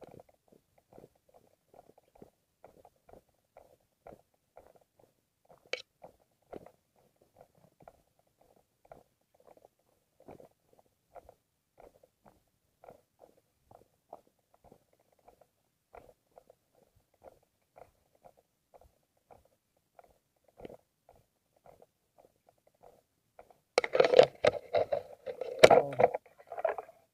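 Mountain bike rolling down a rocky dirt trail: faint, irregular clicks and rattles, then a loud burst of clattering near the end as it bounces over rougher ground.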